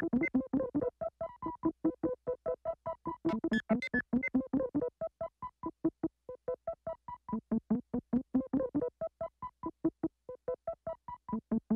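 Song outro: a synthesizer plays fast staccato chords, about five a second, in a steady pulse, each note cut off short.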